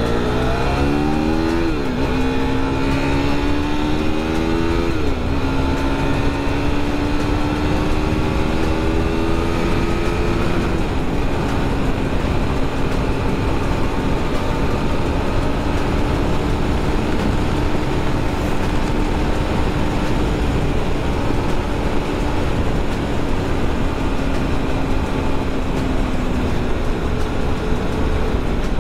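KTM RC390's single-cylinder engine accelerating through the gears: the pitch climbs and drops with a quick upshift about two seconds in and another about five seconds in. It then pulls up more slowly and settles to a steady cruise at a level pitch from about ten seconds in. Steady wind rush on the helmet microphone runs underneath throughout.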